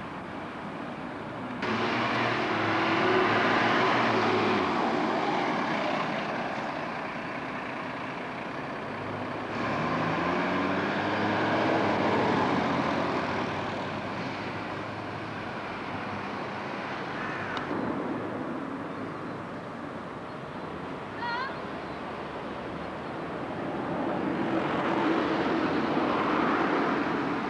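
Road vehicles' engines running and passing, in several short stretches joined by abrupt cuts. In one stretch an engine's pitch rises as it accelerates.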